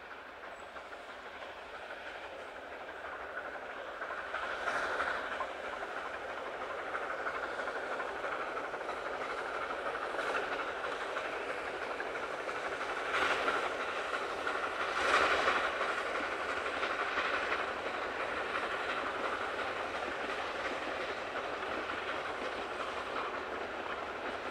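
Narrow-gauge steam train running past: the locomotive and its carriages make a steady rumble and clatter on the rails. It builds over the first few seconds, then holds even, with a few louder swells along the way, the strongest about fifteen seconds in.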